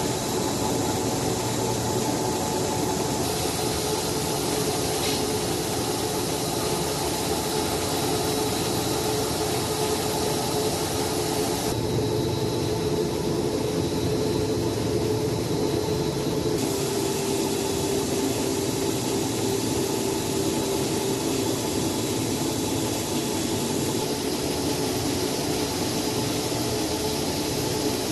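Plastic-film slitter-rewinder running at speed: a steady mechanical hum with a faint whine over an even hiss. The tone shifts abruptly a few times.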